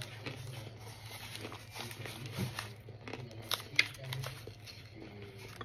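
Baked cornstarch chunks being chewed close to the microphone: scattered crisp crunches and crackles, with one sharper crunch about two-thirds of the way in, over a steady low hum.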